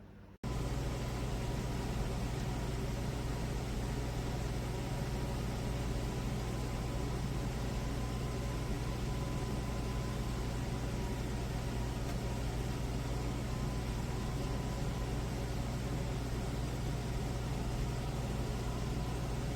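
Humidifier running: a steady, loud hum with a hiss over it and a faint steady whine. It cuts in abruptly right at the start and cuts off abruptly at the end.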